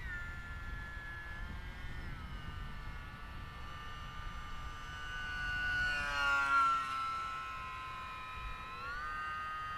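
E-Flite UMX Pitts S-1S micro RC plane's electric motor and propeller whining in flight on an 11.1-volt 3-cell battery, the pitch stepping down and, near the end, back up with the throttle. About six seconds in, the plane passes close: the whine swells to its loudest and slides down in pitch as it goes by.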